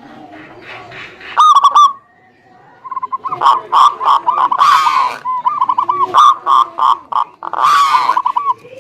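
Several zebra doves (perkutut) cooing and answering one another in fast runs of short, clear notes, fainter at first and thick with overlapping calls from about three seconds in. Two brief hissy bursts break in around the middle and near the end.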